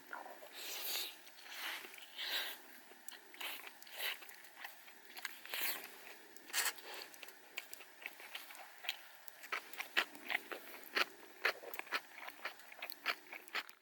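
Irregular crunching and crackling close to the microphone: soft crunches every half second or so, then a quicker scatter of sharp clicks in the last few seconds.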